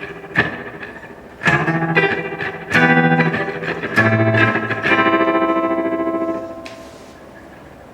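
Gibson Les Paul electric guitar played through an Electro-Harmonix Oceans 11 reverb pedal into a Blues Cube amp: several picked notes and chords, the last held and left to fade away in the reverb near the end.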